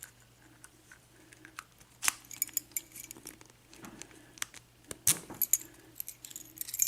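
Small metal clicks and rattles of a Best seven-pin padlock being handled and worked, with a sharp click about two seconds in, another about five seconds in, and a quick cluster of clicks near the end.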